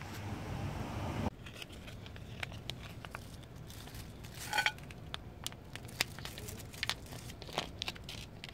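Scattered faint clicks and crinkles, with one brief, high, mew-like call from a stray cat about four and a half seconds in. A steady low hum under the first second or so cuts off abruptly.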